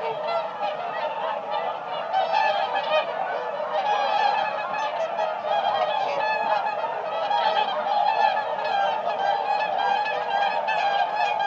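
A flock of swans calling together: many overlapping calls in a dense, unbroken chorus.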